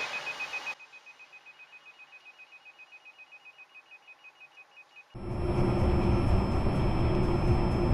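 Rapid, even electronic beeping, faint once the louder street noise drops away under a second in. About five seconds in, a loud steady drone of a car's engine and road noise, as heard inside the car, takes over.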